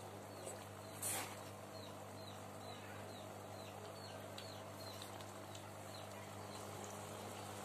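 A bird calls in a run of short, falling chirps, about two to three a second, over a steady low hum. A single sharp click comes about a second in.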